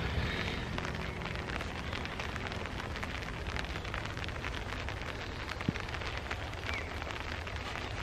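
Rain falling steadily: an even hiss dotted with many small drop ticks, with one sharper click about two-thirds of the way through.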